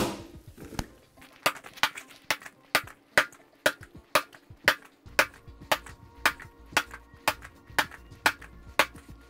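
A bag of lead shot thuds onto a concrete floor once at the start. Background music follows, with a steady tapping beat about twice a second and held chords coming in about five seconds in.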